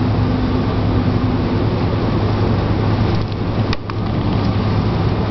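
Steady low rumbling outdoor background noise with a constant hum, and a brief faint ticking about three and a half seconds in.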